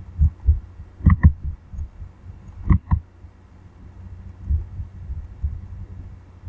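Two quick double-clicks of a computer mouse, about a second and three seconds in, over a low rumble and soft thumps on the microphone.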